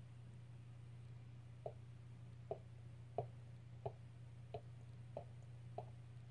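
Faint, soft mouth pops at an even pace of about one and a half a second, eight in all from a second and a half in, as a thick cloud of vape is let out of the mouth; a low steady hum runs beneath.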